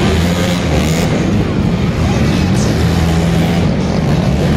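Monster truck engine running loud, its low pitch holding steady and shifting slightly up and down.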